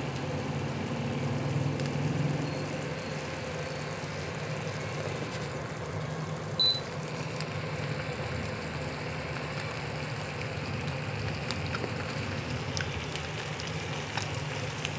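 Tofu sisig and an egg sizzling in a hot frying pan, over the steady hum of an induction cooktop's cooling fan. A short high beep comes about six and a half seconds in.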